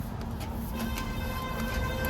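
Heavy diesel machinery running with a low, steady rumble. A steady held tone of fixed pitch joins it under a second in.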